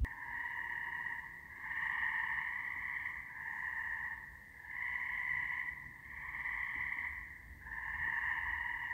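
Frog chorus: overlapping high-pitched trills that run without a break and swell and fade every second or so.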